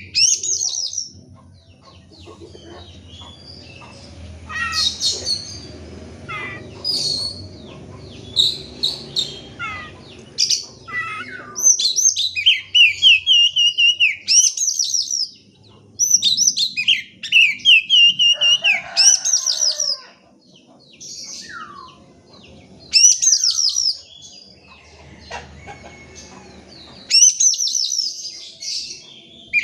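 Oriental magpie-robin (kacer) singing loudly: a varied song of rapid high trills and sweeping whistled notes, in repeated bursts with short pauses between.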